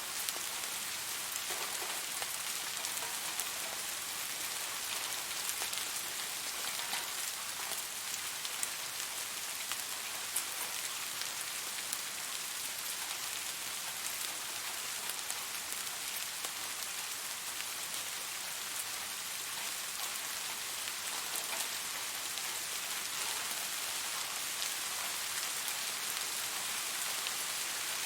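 Steady rain falling on surfaces, a continuous hiss with many fine drop ticks.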